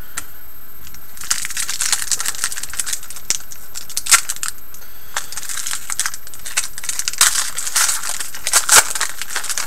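Wrapper of a hockey card pack crinkling and tearing as it is opened by hand: a dense run of sharp crackles starting about a second in and stopping just before the end.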